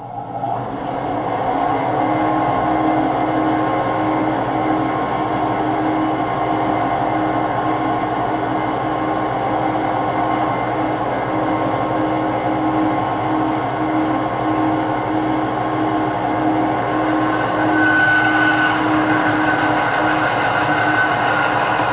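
Laguna 16-inch bandsaw coming up to speed over about two seconds, then running steadily with a slow regular pulse. Near the end a higher whine and hiss join in as the blade cuts through a strip of wood. The blade is one the owner judges not very sharp.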